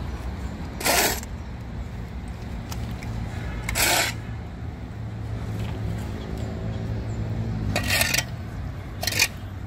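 Short scrapes of steel shovels and hoes across a concrete floor as compost is scooped into plastic baskets: about a second in, near four seconds, and twice near the end. Under them runs a steady low rumble.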